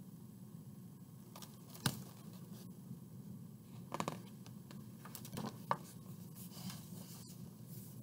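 Pages of a large hardcover picture book being turned and handled: a few sharp paper rustles and taps, the loudest about two seconds in and again around four and five-and-a-half seconds, with looser rustling after that.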